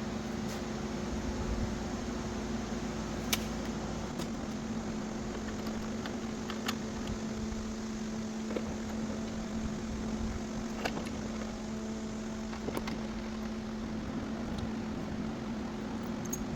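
A steady hum of shop machinery with light clicks and knocks every couple of seconds, from the board being clamped down on the CNC bed.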